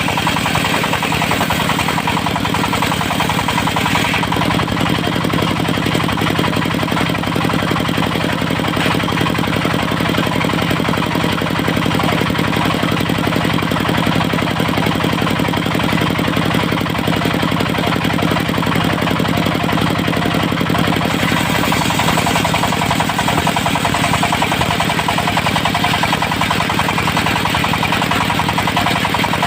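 Portable circular sawmill running steadily, its engine and spinning saw blade making a loud, even machine din while squaring teak logs into beams. The high hiss grows a little brighter about two-thirds of the way through.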